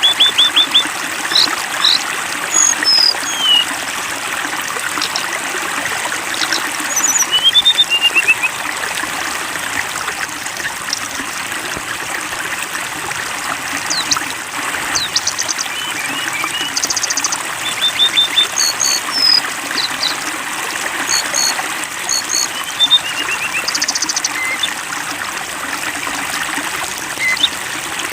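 Water trickling and splashing steadily, like a small stream or fountain. Over it, small songbirds give short chirps, falling whistles and quick trills every second or two.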